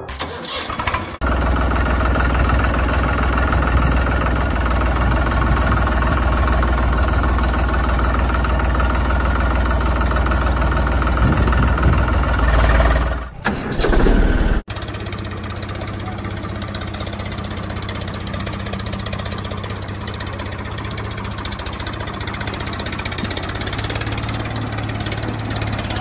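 Tractor engine starting about a second in and running steadily, with a short break and a fresh start about halfway through, after which it runs on with an even low thrum.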